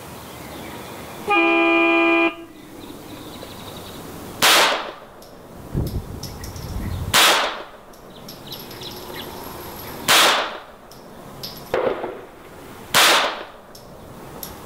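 A one-second start beep, then a CZ 75B with a Kadet .22 LR conversion kit firing four single shots about three seconds apart, in a timed-fire string. Each shot is a sharp crack followed by a short echo.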